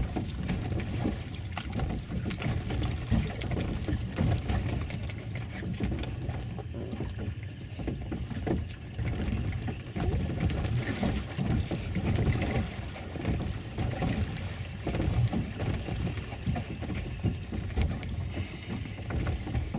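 Low, unevenly pulsing wind and water noise aboard a small boat on open water, with scattered small clicks of handling.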